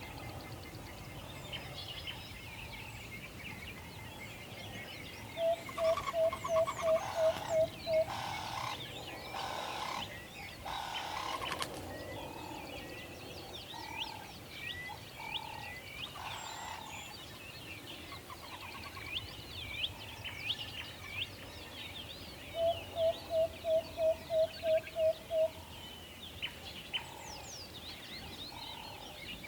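An owl hooting in two quick runs of about nine short, even notes each, the first about five seconds in and the second near the end, while small birds chirp and twitter throughout.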